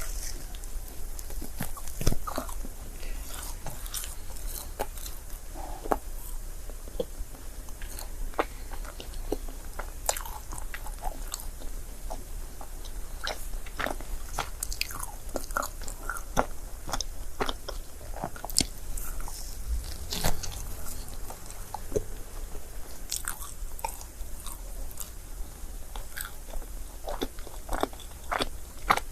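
Close-miked chewing of a crepe: a steady run of small wet smacks, clicks and soft crunches from the mouth as it bites and chews.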